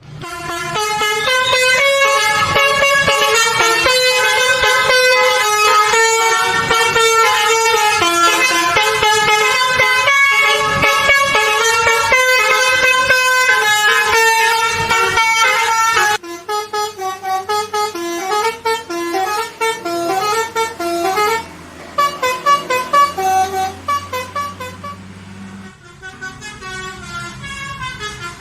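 Indonesian bus 'telolet' horn, a multi-tone air horn playing a fast tune of changing notes. For roughly the first half the notes run on without a break; after a sudden change they come as short separate toots, with a brief pause and a quieter stretch near the end.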